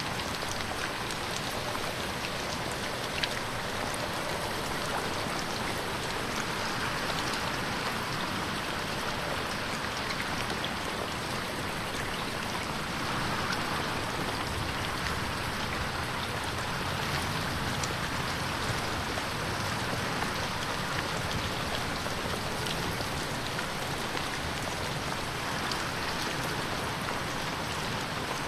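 Steady rain falling on a window pane, a continuous patter with many small drop taps.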